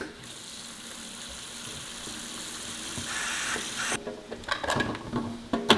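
Diced vegetables (carrot, green beans, bell pepper and onion) sizzling as they fry in an aluminium pot while being stirred with a spatula. The steady hiss stops abruptly about four seconds in.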